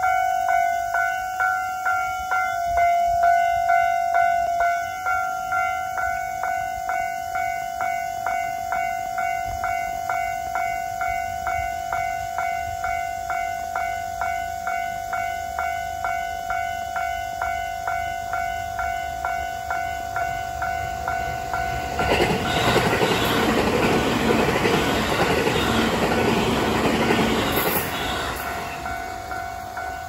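A level crossing's electronic warning bell rings in a steady, even rhythm of strikes throughout. About 22 seconds in a train passes through the crossing, louder than the bell for about six seconds, then fades while the bell keeps ringing.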